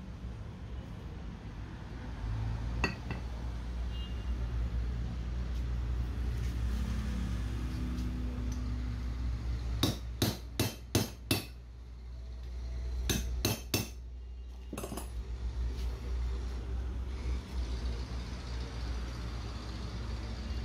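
Sharp metallic taps and clinks of tools on metal parts: a quick run of about five strikes around ten seconds in, then three more a couple of seconds later and a single one after that, over a steady low background rumble.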